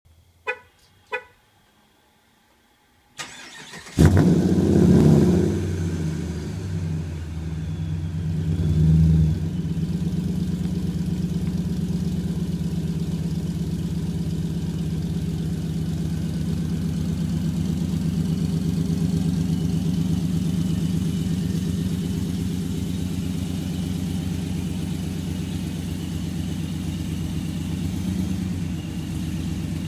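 A 2008 Dodge Ram 1500's supercharged 5.7 Hemi V8, fitted with long-tube headers and Magnaflow dual exhaust with an H-pipe, being started. Two short beeps come first. The engine then cranks briefly and fires about four seconds in with a loud flare, swells once more around nine seconds, and settles into a steady, evenly pulsing idle.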